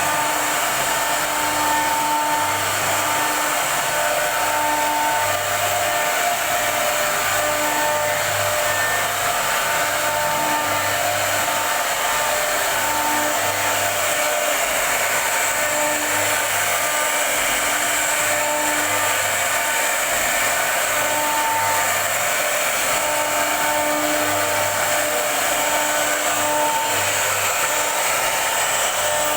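High-speed CNC router running with a steady, high-pitched hiss. A low hum and a couple of tones come and go every second or so.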